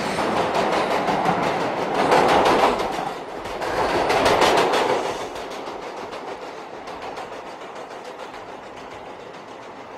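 Light-rail train approaching and pulling into the station, its wheels clattering on the rails. The noise swells to a peak about two seconds in and again about four seconds in, then dies down as the train slows.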